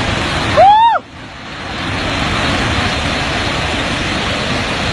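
Steady rushing of a muddy flash flood pouring down a hillside. About half a second in, a person gives one loud yell that rises and falls. After the yell the rushing dips and swells back.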